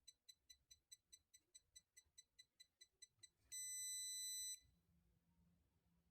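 Gas leakage alarm's buzzer sounding: fast, faint, high-pitched beeps, about five a second, then a little past halfway one louder steady tone for about a second before it stops. The buzzer sounds when the MQ-2 sensor detects flammable gas.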